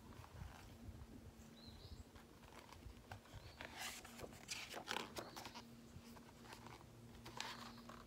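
Paper pages of a hardcover picture book rustling and crackling as a page is turned, loudest about four to five seconds in and again near the end. Under it, a faint steady hum and a couple of faint high chirps.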